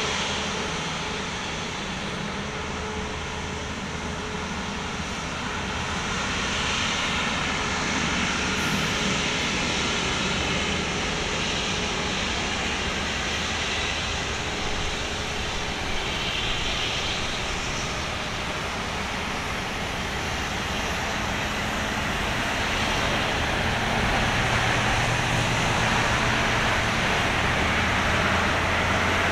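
Airbus A350-900's Rolls-Royce Trent XWB turbofans running steadily at taxi idle as the airliner rolls past, getting a little louder near the end.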